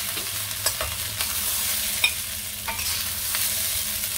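Fried rice sizzling in a wok while a metal spatula stirs and turns it, scraping the wok sharply several times over a steady hiss of frying.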